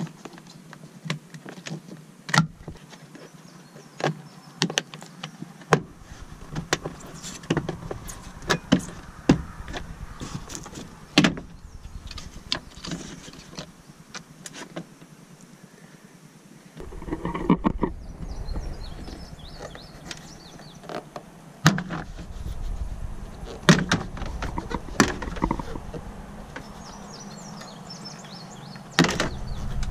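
Plastic interior trim panels of a 2002 Subaru Outback being pulled loose by hand: irregular sharp clicks and snaps as the push-pin clips pop free, with rubbing and creaking of the plastic in between.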